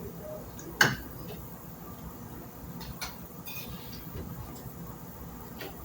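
A few sharp, irregular clicks, the loudest about a second in, against a faint steady background.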